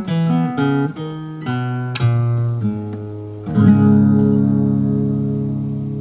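Restored 1977 GM R1-14 nylon-string classical guitar being plucked: a run of single notes, then a full chord about three and a half seconds in, left ringing and slowly fading.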